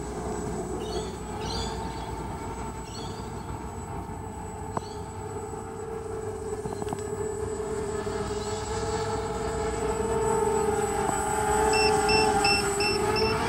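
Walkera 250 FPV quadcopter's brushless motors and propellers whining steadily in flight, getting louder as it comes close near the end. Near the end, five short, evenly spaced high beeps: a low-battery warning. A few bird chirps in the first seconds.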